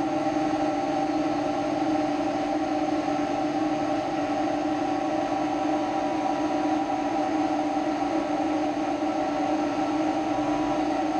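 Kobalt electric air compressor running steadily under load, its pump whining at a few steady pitches over a hissing noise as it builds tank pressure. Its unloader line is plugged up with oil and gunk.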